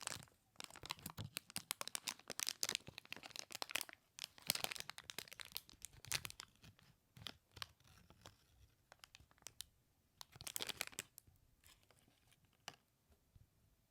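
Crinkly plastic packaging bag crackling and rustling as it is handled, in dense bursts that thin out after about seven seconds, with one more flurry near eleven seconds.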